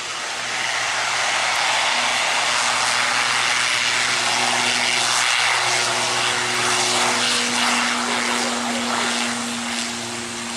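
Jet airliner's engines passing. The loud noise swells about half a second in, holds with a low steady hum under it, and eases off near the end.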